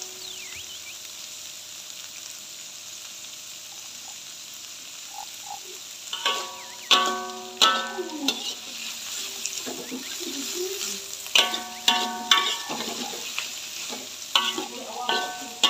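Shredded durian flowers and midin fern shoots sizzling in an aluminium wok. After about six seconds a metal ladle starts knocking and scraping against the wok in three short bouts of stirring, and each strike rings briefly.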